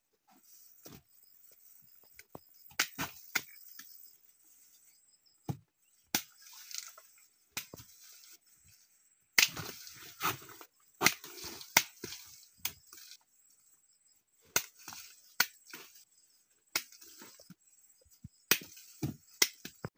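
Irregular sharp chops of a sickle blade cutting cassava tubers off the stem, mixed with knocks of the roots being handled and tossed onto the pile. The hits come thickest and loudest in a run a little before the middle of the clip.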